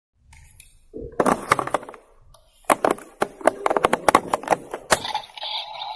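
Bandai Kamen Rider Amazons toy transformation belt playing its sound effects: a quick run of sharp, cracking hits, followed by a buzzing electronic sound near the end.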